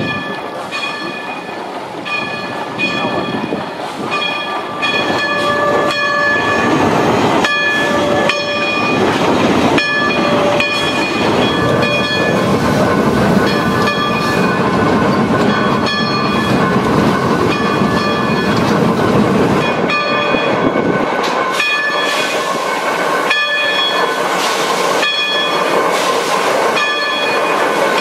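Climax geared steam locomotive running with its train, a dense chuffing clatter that grows louder about five seconds in. Over it a metallic ringing note repeats about once a second throughout.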